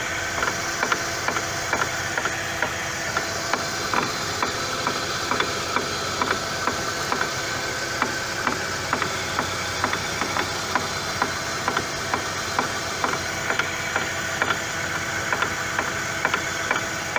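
Brake disc and hub on a Chevrolet Lacetti's right front corner knocking as the driveshaft turns them in gear with the wheel off: with no wheel bolted on, nothing clamps the disc to the hub, so it has play and rattles. Regular knocking a few times a second over the steady running of the engine.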